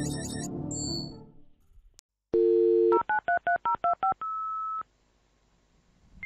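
Telephone sound effect: a steady dial tone for about half a second, then about eight quick touch-tone keypad beeps, each two tones together, ending in one steady beep about half a second long. Music fades out during the first second and a half.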